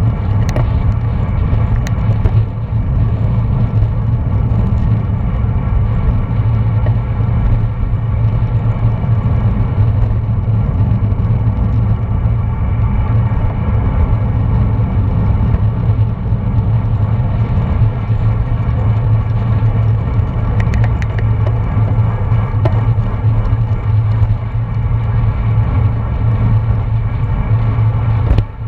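Steady low rumble of wind buffeting a bike-mounted action camera's microphone, mixed with tyre and road noise, while riding at speed in a road-race bunch.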